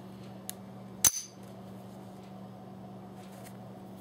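Browning Buck Mark .22 pistol's steel action working on the empty gun: a small click, then a single sharp metallic snap with a brief rattle just after it, about a second in.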